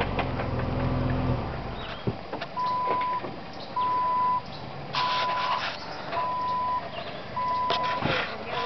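A vehicle engine runs low for the first second or so. Then, starting about two and a half seconds in, a reversing beeper sounds a steady single-pitch beep six times, evenly spaced a little over a second apart.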